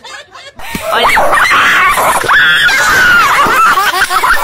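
A dog letting out a loud, drawn-out screaming howl with a wavering pitch, starting about half a second in.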